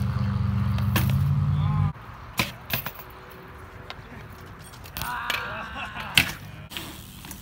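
BMX bike tyres rolling on concrete with a steady low hum that cuts off about two seconds in, followed by sharp clacks and knocks of the bike hitting the concrete, the loudest about six seconds in.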